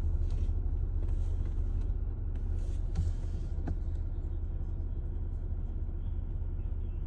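Car climbing a mountain road, a steady low rumble of engine and tyres, with a couple of light clicks about three seconds in.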